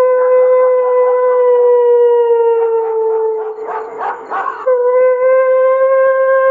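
A long, eerie howling wail held at one steady pitch, sinking slightly, then breaking off about four and a half seconds in and starting again at a slightly higher pitch. It is presented as the cry of a kuntilanak ghost.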